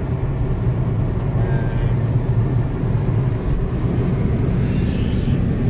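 Steady low rumble of road and engine noise inside the cabin of a moving Toyota Corolla.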